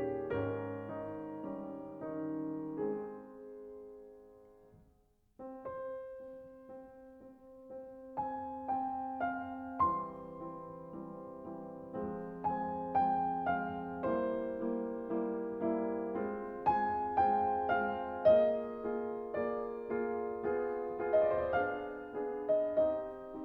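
Gentle solo piano background music; one piece fades out about four seconds in and, after a brief pause, another begins and plays on.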